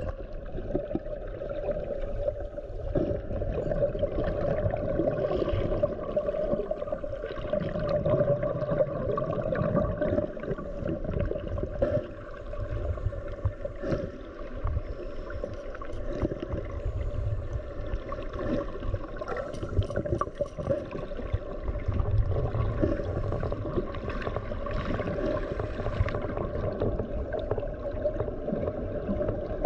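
Muffled underwater sound: water movement and bubbling from scuba divers' regulator exhalations, over a steady, even hum.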